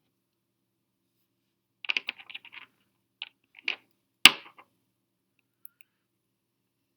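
Small hard clicks and light rattling from fingerboard parts and a small tool being handled during assembly, with one sharp, louder tap with a brief ring about four seconds in.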